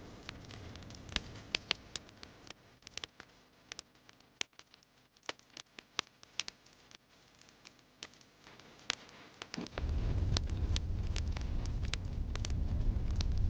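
Wood fire in a fireplace crackling, with frequent sharp pops. About ten seconds in, a loud low rumble sets in suddenly and carries on beneath the crackle.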